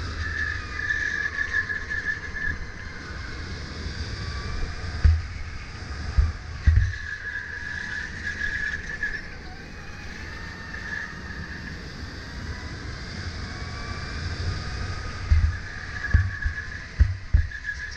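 Sodi RSX2 electric go-kart's motor whining, its pitch rising and falling with speed through the corners, over a low rumble. There are several short low thumps, a few in the middle and more near the end.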